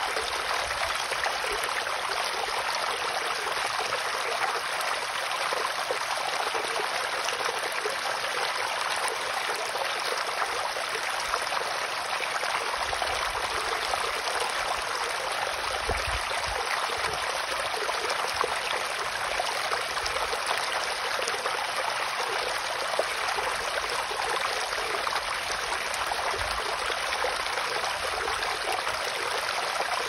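Shallow stream running over small stones and pebbles: a steady, even rush and babble of water with no breaks.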